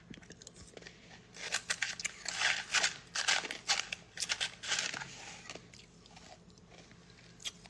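Spoon scraping and stirring shaved ice in a plastic cup: a run of short, crunchy scrapes from about a second in, dying away after about five seconds.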